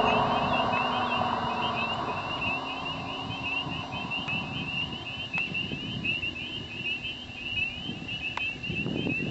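A 1999 Camaro SS's cammed 6.0-litre V8 pulls away into the distance, its exhaust note dying down over the first couple of seconds and lingering faintly as a low drone. A steady, high-pitched chirping chorus runs underneath.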